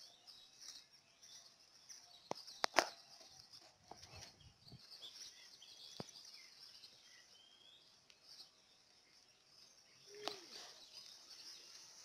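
Quiet outdoor ambience with faint bird chirps over a steady high hiss. A few sharp clicks cut through, the loudest nearly three seconds in.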